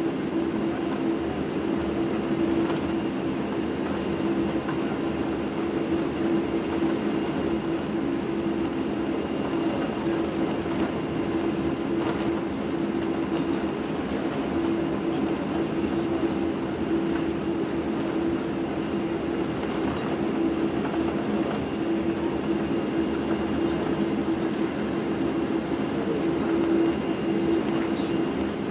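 Cabin noise of a Boeing 747-8i taxiing: the steady drone of its engines at taxi power heard through the fuselage, with a faint high whine over it. A few faint knocks come through now and then.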